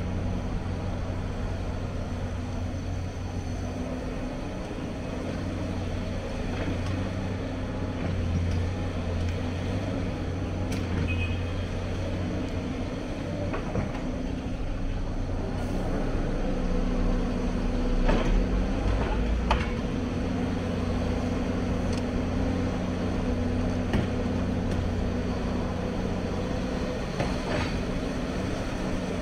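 Hyundai crawler excavator's diesel engine running steadily under load while it digs, swings and loads a dump truck, a constant low drone. A few sharp knocks and clanks come around two-thirds through, as the engine swells a little.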